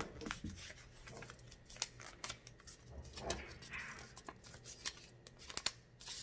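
A sheet of paper being folded and creased by hand: faint, irregular crinkling with light clicks and taps as the fold is pressed.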